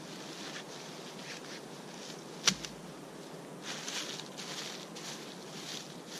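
Hands scraping dead leaves and soil back into a small dug hole, a soft rustling in several short spells, busiest in the second half. One sharp knock about two and a half seconds in as the wooden digging stick falls to the ground.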